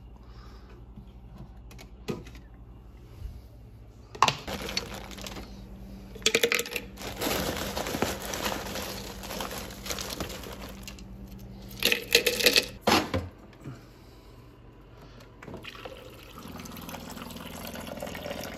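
Water running into a blender cup being filled for a smoothie, in a couple of stretches that start about four seconds in, with a few sharp knocks of the cup being handled.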